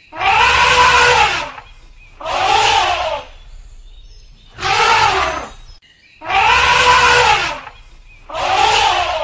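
Elephant trumpeting: five loud calls about two seconds apart, each a second or so long, rising then falling in pitch.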